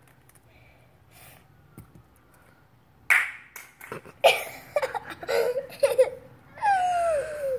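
A young child giggling and laughing, starting about three seconds in after a quiet stretch, with one long falling-pitched laugh near the end.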